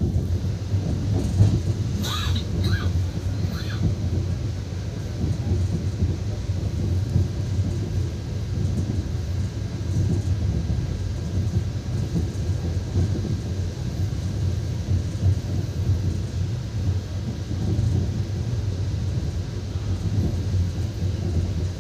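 Steady low rumble of a moving express train's passenger coach running along the track, heard from inside the coach. A few short high-pitched sounds break in about two to four seconds in.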